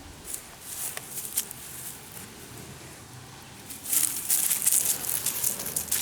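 Dry vegetation rustling and crackling as a small terrier noses and scrabbles around while tracking a scent. A few light crackles come first, then it turns louder and busier about four seconds in.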